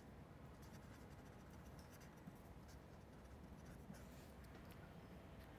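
Faint scratching of a felt-tip marker writing on paper.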